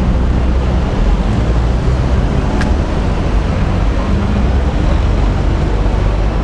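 City street traffic: cars passing close by at an intersection, a steady low rumble with no pauses.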